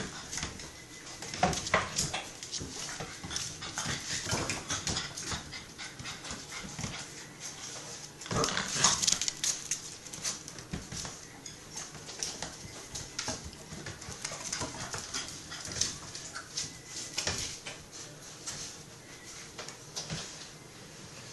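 Six-week-old puppies play-fighting, with small puppy yips and growls and their claws scrabbling and clicking on the wooden floor.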